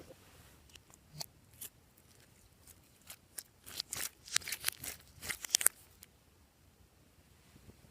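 Glossy slime being worked by hand: a few scattered sticky clicks, then a dense run of crackling pops and clicks about halfway through that stops at around six seconds.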